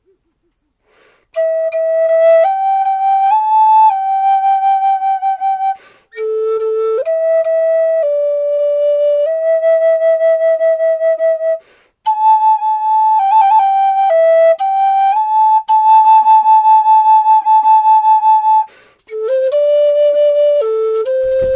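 Flute played slowly in a meditative melody: long held notes in phrases, with short pauses for breath between them, about every six seconds. The notes waver briefly a little past the middle.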